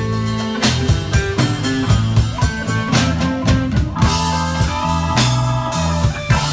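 Live band playing an instrumental blues shuffle: electric guitar over a moving low line, with keyboard and drum kit keeping a steady beat.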